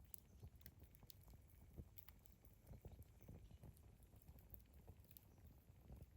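Wood campfire burning quietly, with irregular sharp crackles and pops of the burning wood over a soft low rumble of the flames.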